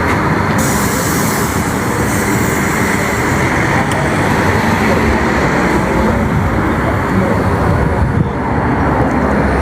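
Loud, steady outdoor street noise with a heavy low rumble, picked up by a phone microphone while walking along a road.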